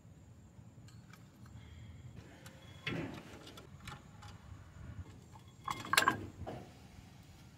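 Pistol-grip brake caliper piston compressor tool being worked on a brake caliper and then pulled off it: scattered faint metal clicks and tool clatter. There is a louder clack about three seconds in and a short burst of sharp clicks around six seconds.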